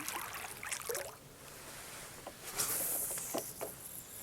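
Water splashing and dripping around a kayak, in a few short separate splashes with a couple of light knocks.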